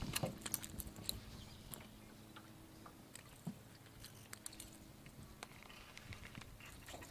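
Faint scattered clicks and ticks from a baitcasting rod and reel being handled and readied for a cast, over a faint low steady hum.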